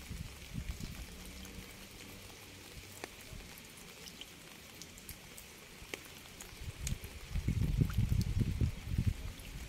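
Rain falling steadily, with scattered individual drops ticking sharply. About seven seconds in, a low, uneven rumble swells up underneath.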